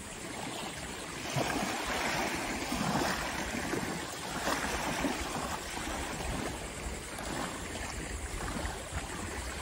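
Small waves lapping in the shallows at the water's edge, a splashing wash that swells and eases every second or so.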